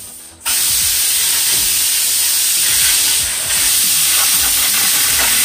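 Handheld plasma cutter cutting through an aluminium boat hull: a loud, steady hiss that starts abruptly about half a second in and steps up slightly in level about three and a half seconds in.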